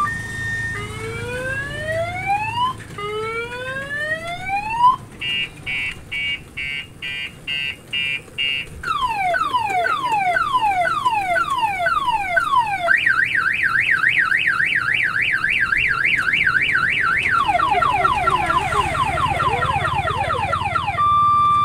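Electronic multi-tone siren of the car-alarm kind, cycling through its patterns: two slow rising whoops, a quick run of about eight beeps, a string of falling sweeps, a fast warbling yelp, then quicker falling sweeps, and back to an alternating two-tone hi-lo near the end.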